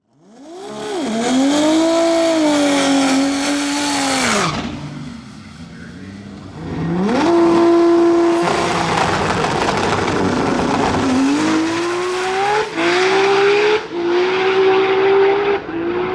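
Drag racing car engine revving hard at high, steady revs for about four seconds, then revving up again and climbing with several brief dips in pitch, like gear shifts, through the second half.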